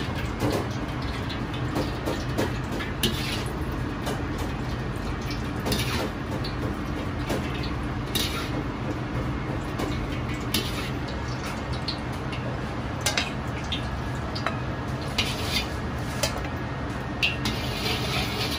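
Steel ladle scooping oil from a carbon-steel wok and pouring it into a steel bowl, with scattered metal clinks as the ladle knocks against wok and bowl, over a steady low kitchen rumble.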